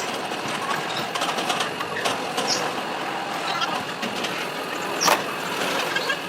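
Factory workshop din: a steady mechanical noise with scattered metallic knocks, the loudest a sharp knock about five seconds in.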